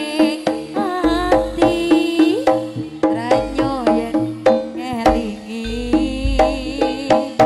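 Live East Javanese jaranan music: kendang hand drums beating quick, busy strokes under a wavering lead melody, over a steady drone and deep booming low notes that recur every second or two.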